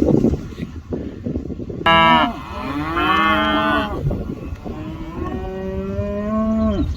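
Cattle mooing: two long, drawn-out moos, the first loud and wavering in pitch about two seconds in, the second lower and steadier a few seconds later.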